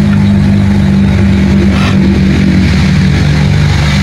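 Loud, steady low droning hum that dips a little lower in pitch near the end, of the kind an engine or motor running nearby makes.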